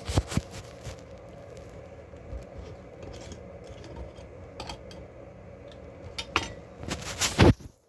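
A jar being opened and handled: light clicks and knocks from the lid and jar, with a louder run of clatter near the end.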